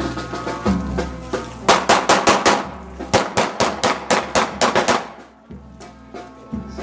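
Band music with a low drum beat, broken from about a second and a half in by two runs of sharp, evenly spaced strikes, about six a second; the music drops quieter near the end.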